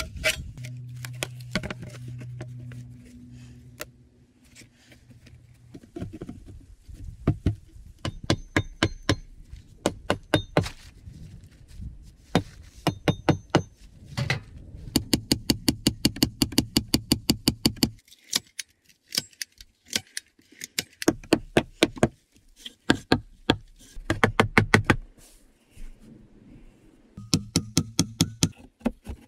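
Hammer blows on the logs of a dugout's log wall: runs of sharp knocks, at times four or five a second, broken by short pauses.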